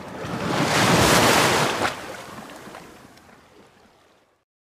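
Surf: a wave washing in, swelling to a peak about a second in and then fading away.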